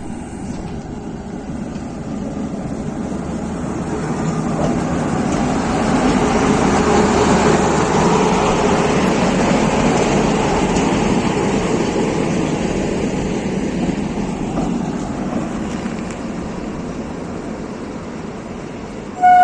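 WAG-9H electric freight locomotive passing close by, its running noise building to a peak about seven seconds in and then fading as it moves away. Right at the end its horn starts to sound, loudly.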